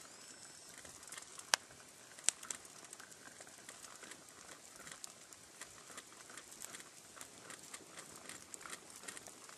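Campfire crackling around a percolator coffee pot perking on the fire, with small pops throughout and two sharper pops under a second apart about a second and a half in.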